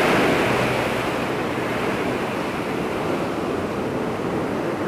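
Sea surf washing onto a beach: a steady rush of waves, a little louder at the start.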